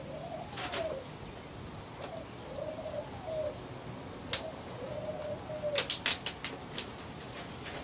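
A dove cooing over and over, low arched calls. A few sharp clicks break in, one about four seconds in and a quick cluster around six seconds, louder than the cooing.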